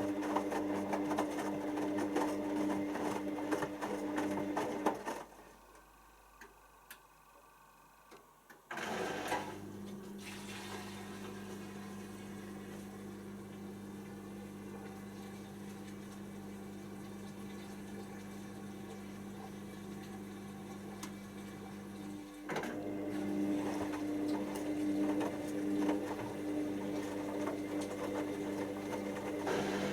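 Hoover DYN7144XD1 front-loading washing machine turning its drum during the wash: a steady motor hum with rattle that stops for about three and a half seconds, starts again with a lower hum, and grows louder again near the end, as the drum pauses and changes direction.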